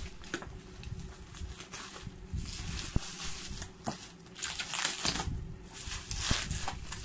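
Plastic bubble wrap rustling and crinkling as it is pulled off a cardboard box, with the box being handled and a few sharp clicks.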